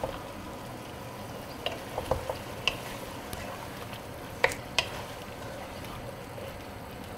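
Chicken and tomato pieces frying in a pan while a wooden spoon stirs them, a steady low sizzle with several sharp knocks of the spoon against the pan, the two loudest about four and a half seconds in.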